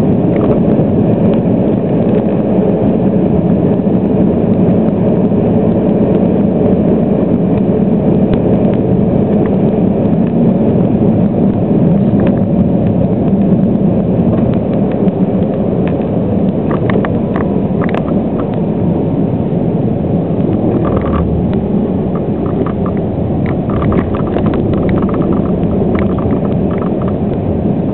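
Steady rumble of a car driving on a highway, engine and tyre noise heard from inside the cabin, with a few light ticks in the second half.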